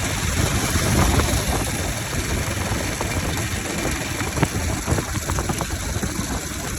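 Bajaj Pulsar RS200's single-cylinder engine running with its air filter removed, exposing the intake sound. It swells briefly about a second in, and a run of sharp pops comes between about four and six seconds in.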